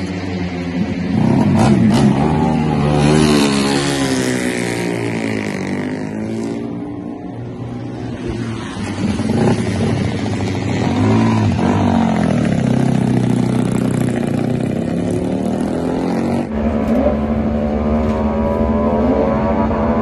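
Moto3 Honda 250 cc single-cylinder four-stroke racing engines being started and revved. The revs rise and fall over and over, then change suddenly to a steadier running engine about sixteen seconds in.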